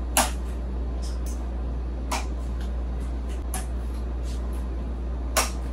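Walking with a single aluminium crutch on carpet: four short knocks from the crutch and slide-sandal steps, a second and a half to two seconds apart, over a steady low hum.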